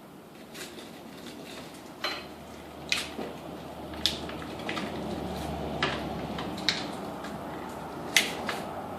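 Small slingshot ammo balls clicking and clinking against each other and their container as they are fished out by hand: about eight separate sharp clicks at irregular spacing.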